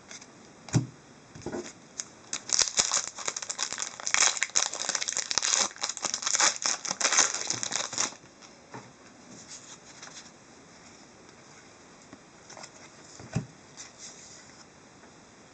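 Plastic wrapper of a hockey card pack being torn open and crinkled for several seconds, followed by quieter rustling and soft taps as the cards are handled.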